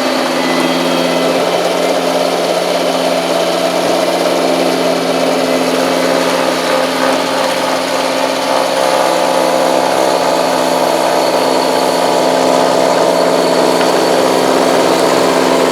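Kubota compact tractor's diesel engine running steadily while driving a 45-inch snowblower. The engine note shifts slightly about halfway through and grows a little louder near the end.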